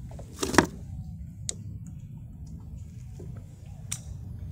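Sharp clicks and knocks from fishing gear on a plastic kayak over a low, steady rumble. The loudest knock comes about half a second in, with smaller clicks about a second later and near the end.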